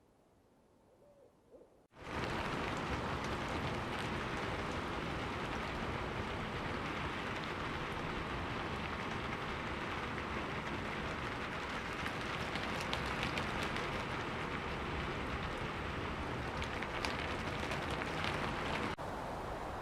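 Steady, heavy rain with a dense patter of drops. It starts abruptly about two seconds in and cuts off sharply near the end.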